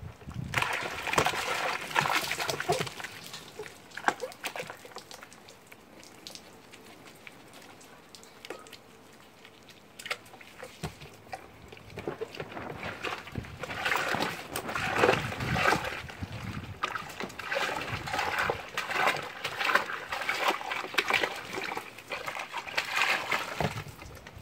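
Capuchin monkeys splashing and sloshing about in a tub of soapy water, with a thin stream of water running into it. The splashing is busy for the first few seconds, eases off for a stretch, then picks up again over the second half.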